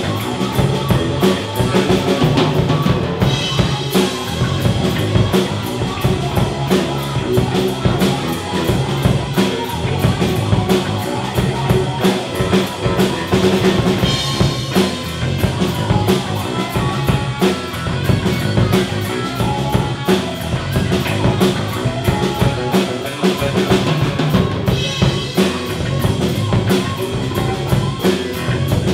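Three-piece rock band playing live: a Gretsch drum kit with Paiste 2002 cymbals keeps a steady beat under electric bass and electric guitar.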